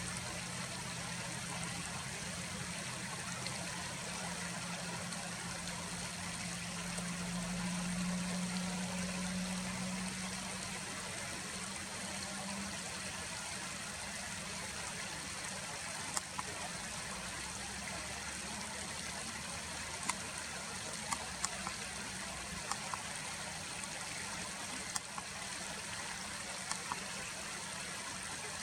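Steady rush of flowing stream water. A low hum sits under it for the first twelve seconds or so, and a few sharp ticks come in the second half.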